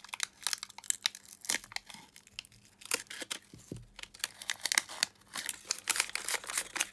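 Plastic wrapper of a battery pack being peeled and torn off, with irregular crinkling and crackling.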